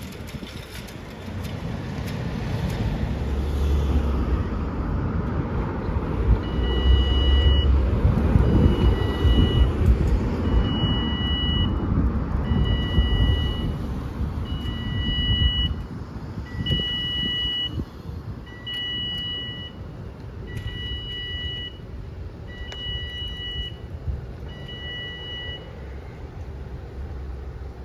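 Level crossing warning alarm sounding a two-tone beep, about one second on and one second off, as the barriers come down to close the road for a train. It starts several seconds in and stops shortly before the end, over the rumble of cars driving across the crossing.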